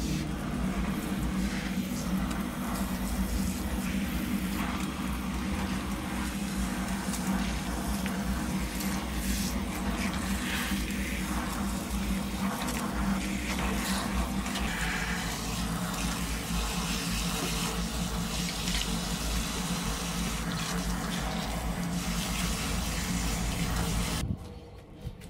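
Water from a shower spray running steadily into a plastic washbasin packed with stuffed toys, filling it and raising suds from the washing powder; it cuts off about a second before the end.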